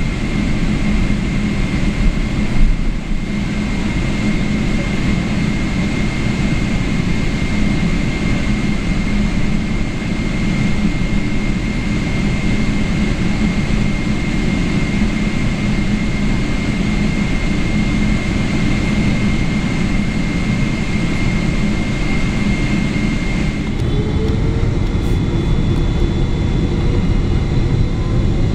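Steady jet cabin noise inside a Boeing 777-300ER from its GE90 engines and air system, with a thin steady whine. About 24 s in, the whine stops and several rising whines begin as the engines spool up.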